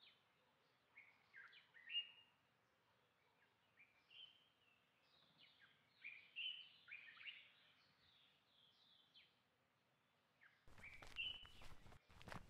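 Faint birdsong: a run of short chirps and quick falling, sliding calls. Near the end a louder rough noise with a few sharp knocks comes in.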